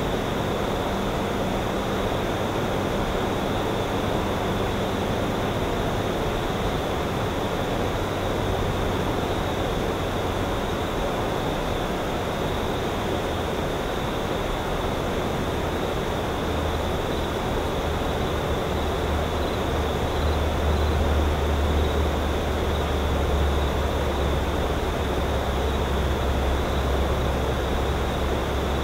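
A low, distant engine drone over a steady hiss of outdoor noise, the drone growing stronger about halfway through.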